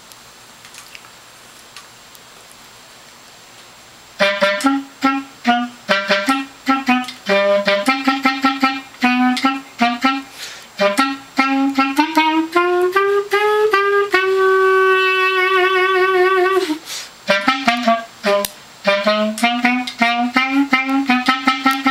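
Solo clarinet improvising. After about four seconds of faint hiss it plays quick, short detached notes in its low register, slides slowly upward into a long held note with vibrato, pauses briefly, then goes on with more short staccato notes.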